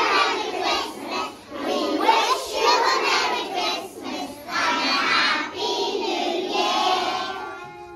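A large group of young children's voices together in unison, loud, in phrases of about a second each with short breaks, dying away near the end.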